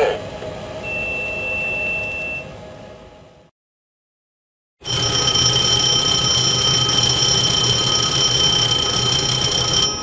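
Cockpit engine fire warning bell ringing continuously from about five seconds in, loud and steady. Before it, the end of a ground-proximity/landing-gear warning: a steady high tone lasting about a second and a half, then fading out into a short silence.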